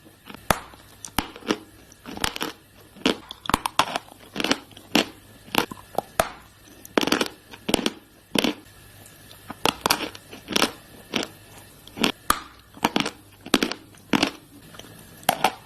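Close-miked chewing of dry chalk sticks: a run of sharp, crisp crunches, about one to two a second, with softer grinding chews between them.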